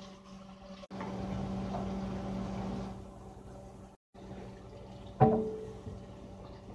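A steady hiss from a grilled cheese sandwich frying in a skillet on a gas stove, louder for a couple of seconds, then a single sharp metal clank with a short ring at the stovetop about five seconds in.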